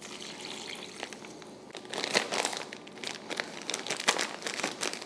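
Plastic zip-top freezer bag crinkling as it is handled and its zipper pressed shut, with irregular crackles that grow louder from about two seconds in.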